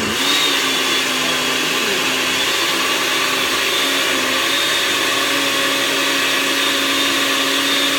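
Electric blender running steadily, blending a smoothie of almond milk, frozen berries and banana: even whirring over a steady motor hum.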